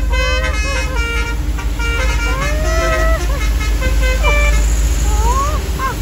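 Basuri horn, a set of small trumpet air horns, playing a warbling tune of swooping notes that rise and fall in short phrases, over the low rumble of road and engine noise.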